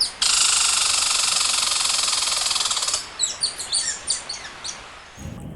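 Birds: a loud, steady buzzing trill for about three seconds, then a run of quick high chirps.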